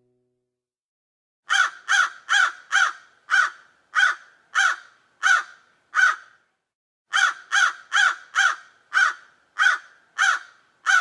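Crow cawing in two runs of short caws, starting about a second and a half in. About nine caws, then a brief pause and about eight more; each run starts quick and then spaces out.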